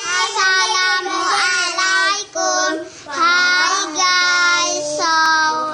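A child singing a short tune in one high voice, holding long notes with slides between them.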